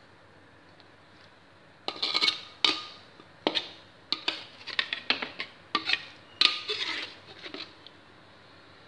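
Metal spatula scraping and clanking against a metal wok while scooping up sauce and garlic leaves. A run of quick scrapes and clanks, some with a slight ring, starts about two seconds in and stops near the end.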